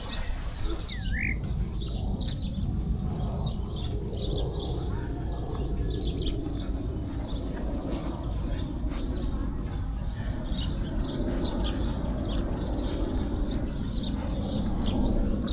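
Small birds chirping and twittering: many short, quick high calls overlapping without pause, with one short rising call about a second in. Beneath them runs a steady low rumble of outdoor background noise.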